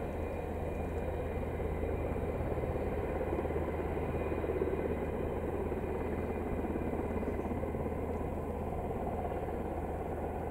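F-15 fighter jet's twin turbofan engines running at low power during its landing roll-out, a steady, even jet noise.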